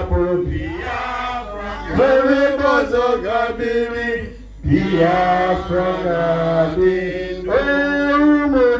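Chanted singing in long held phrases, with a short break about four and a half seconds in.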